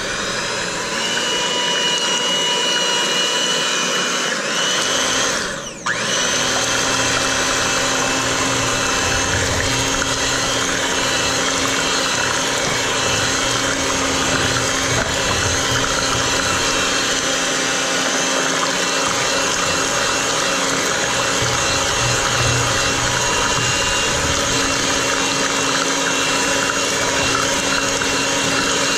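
Electric hand mixer running steadily, its wire beaters churning a thin batter of eggs, milk and corn kernels in a plastic bowl. The motor briefly dips about six seconds in, then runs on evenly.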